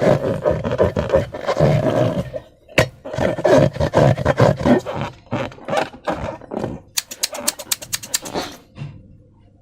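Slime being squeezed and worked by hand: irregular wet squelching with sticky popping clicks, a sharp snap about three seconds in, and a quick run of crisp clicks near the end.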